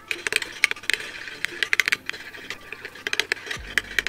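Metal spoon stirring a thick dish-soap and toothpaste mixture in a small glass bowl, clinking and scraping against the glass in quick, irregular taps.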